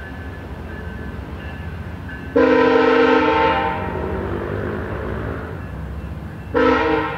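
Air horn of a departing passenger train's GE P42DC diesel locomotive, sounding one chord blast about two seconds in that fades slowly afterwards, then a second blast starting near the end. Under it runs the steady rumble of the passenger cars rolling away.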